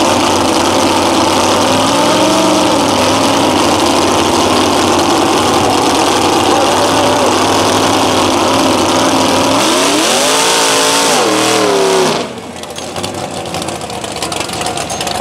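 Lifted mud truck's engine running loud and hard, its pitch wavering, then revving up and down several times near the end before cutting off abruptly about twelve seconds in, leaving a quieter engine sound.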